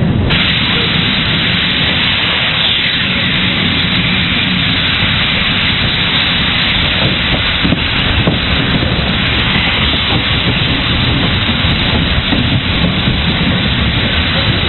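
Steam locomotive under way, heard from the train just behind it: a loud, steady rush of steam and exhaust over a low rumble, with wind buffeting the microphone. The hiss jumps up sharply just after the start.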